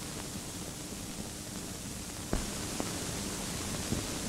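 Steady hiss of an old optical film soundtrack, with a sharp click about two and a half seconds in and a couple of fainter ticks after it.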